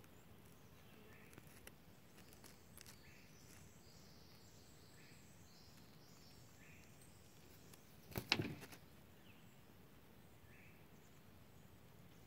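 Faint outdoor quiet with soft short chirps repeating every second or two, and a brief cluster of clicks and rustling about eight seconds in.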